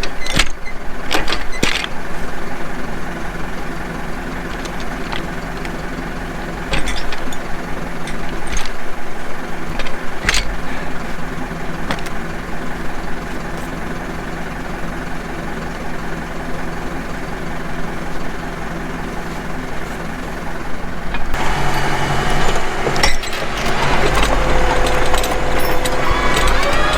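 Farm tractor's diesel engine running steadily, with a few sharp clicks and knocks in the first ten seconds. About 21 seconds in it gets louder, and near the end its pitch rises as it revs up.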